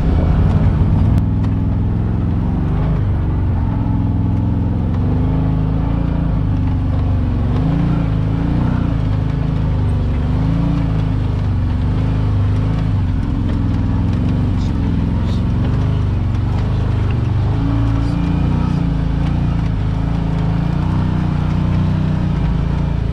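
Side-by-side UTV engine running steadily while driving over rock, heard from inside the open cab, its pitch rising and falling gently with the throttle.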